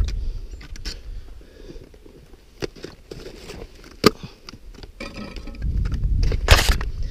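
Wind rumbling on an action camera's microphone during a rock scramble, with a few sharp clicks of climbing gear and boots on rock, and a loud rush of noise about six and a half seconds in.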